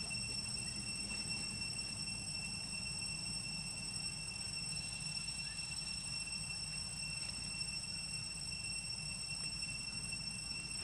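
Steady outdoor ambience: a constant high-pitched whine that never changes, over a low rumble.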